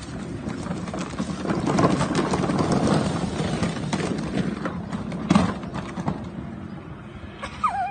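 Plastic toy ride-on jeep rattling and bumping as it careers down a grassy slope, with a sharp thump a little over five seconds in as it crashes and the child tumbles out. A short cry near the end.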